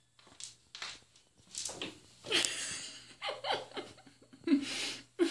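Stifled laughter: a string of short breathy snorts, building into a longer breathy stretch and then voiced chuckles near the end.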